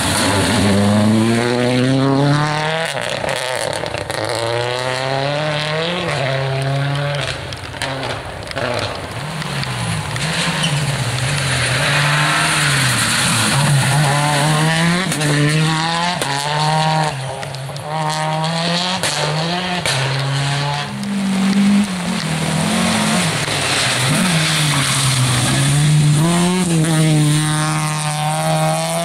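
Rally cars passing one after another on a wet gravel stage, first a Toyota Corolla and then a Škoda Octavia. Their engines rev hard and climb in pitch through the gears, dropping at each shift, several times over.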